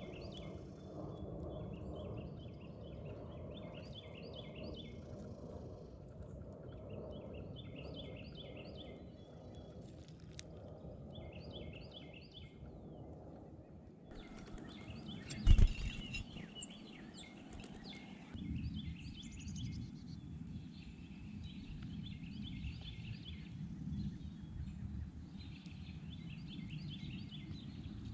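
Songbird calling in repeated one-second series of short high chirps over a steady low outdoor rumble, with a single loud thump about halfway through.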